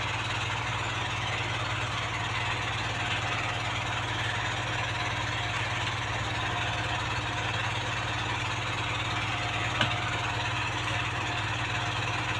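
Steady low machine hum with an even hiss, and one faint click about ten seconds in.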